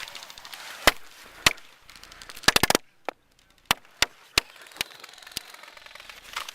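Airsoft guns firing: sharp single cracks scattered through, with a quick burst of about five shots around two and a half seconds in.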